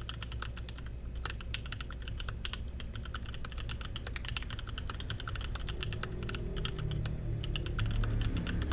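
Typing on a DZ60 mechanical keyboard with Kiwi C³Equalz X TKC 67g tactile switches, PBT doubleshot Cherry-profile keycaps, a carbon fiber plate and an aluminum case: a steady run of key clacks, several a second. A low rumble grows underneath in the second half.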